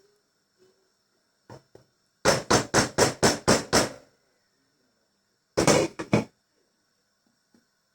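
A quick run of about eight sharp knocks, then a shorter run of three or four about a second and a half later.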